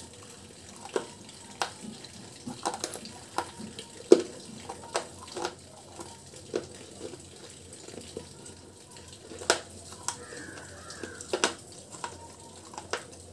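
Close-miked chewing and wet mouth sounds from eating a mouthful of chalky, crumbly powder: irregular sharp clicks and lip smacks about once a second over a low hiss, the loudest about four seconds in.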